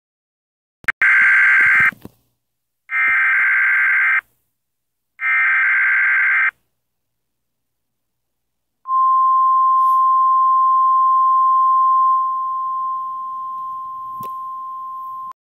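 Emergency Alert System tones: three buzzy data bursts of the SAME header, each about a second long with short gaps between them, then a long steady single-pitch attention tone that drops a little in level partway through and cuts off abruptly.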